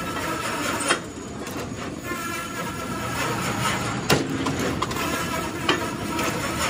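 Power press running steadily with a faint whine, striking a mild steel truck wheel rim plate in sharp metal-on-metal strokes: two heavy ones about a second in and at four seconds, a lighter one near six seconds.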